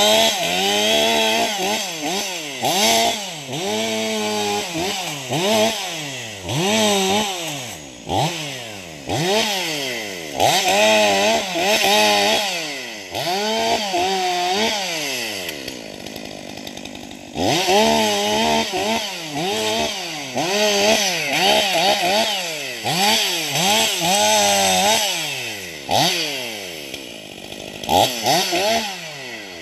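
Stihl MS 500i fuel-injected two-stroke chainsaw limbing a felled spruce: the engine revs up and falls back about once a second as each branch is cut, and drops briefly to idle about halfway through.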